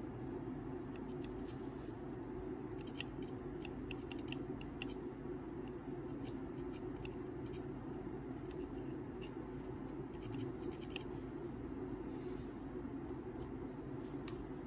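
Small, crisp metal clicks and snips, irregular and in clusters, from a thin metal tool working the cotton wick on a rebuildable tank's coil deck. A steady low hum runs underneath.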